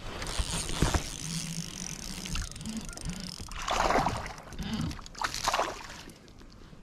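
Water splashing and sloshing around a fishing kayak, with louder splashes about four seconds in and again about five and a half seconds in.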